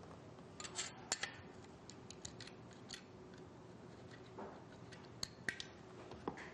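Small metal machine-kit parts being handled and fitted into a slotted metal profile rail: scattered light clicks and taps, a sharper pair of clicks about a second in and a few more just past five seconds.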